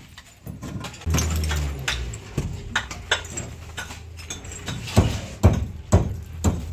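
Scattered sharp knocks and clinks of hammer and block work on a concrete-block wall, several strikes in quick succession about two and a half seconds in and again about five seconds in. A low hum sounds about a second in.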